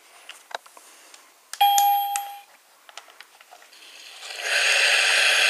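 Electronic sound effects from a Chuggington Interactive Chugger Wash toy as its wash cycle starts: a few faint clicks, then a short ding-like chime about a second and a half in that fades within a second, then a steady hissing noise from about four seconds in.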